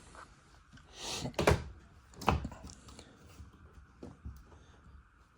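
Two dull knocks about a second apart, with a brief rushing sound just before the first and faint clicks later, like a door or latch being handled inside the camper.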